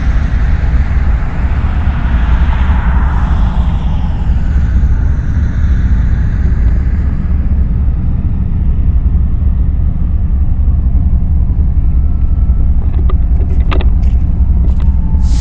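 BNSF diesel locomotives approaching, a steady deep engine rumble. A few sharp clicks come near the end.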